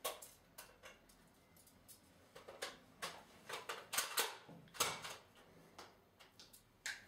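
Irregular light clicks and knocks from a pistol being handled and dry-fired at the head, the hammer falling on an empty chamber. The clicks are thickest in the middle, with a few sharper ones around four and five seconds in.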